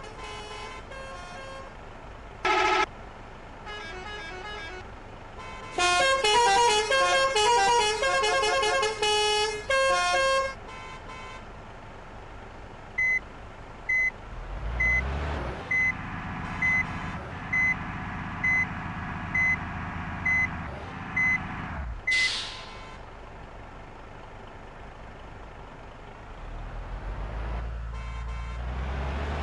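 Bus telolet horns playing quick multi-note melodies, loudest about six to ten seconds in. Then a bus's diesel engine revs up, with a short beep repeating about once a second, a brief hiss, and the engine running on near the end.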